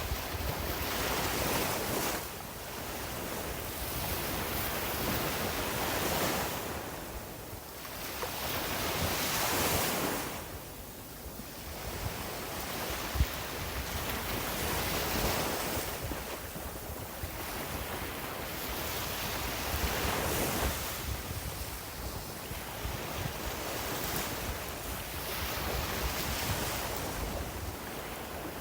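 Sea waves breaking and washing up a beach, swelling and falling back every five or six seconds.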